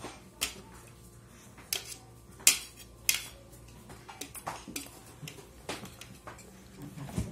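Metal forks and spoons clinking and scraping against plates as children eat, in scattered sharp clicks, the loudest about two and a half seconds in.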